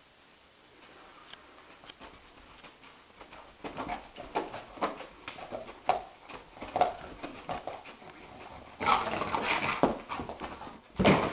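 A dog whimpering in a string of short whines, starting a few seconds in, with a louder noisy stretch near the end.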